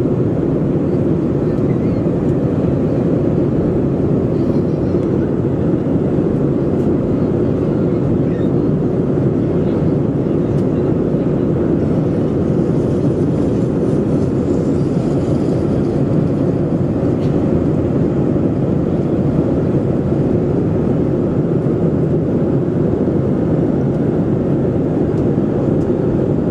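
Steady cabin noise inside a Boeing 737-400 during the climb: the CFM56-3 turbofans and the airflow over the fuselage make an even, low rumble that neither rises nor falls.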